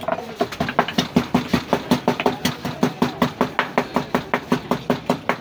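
Wooden pestle pounding rapidly into a drinking glass, about five knocks a second, each with a short dull ring from the glass: ingredients being muddled for a chai drink.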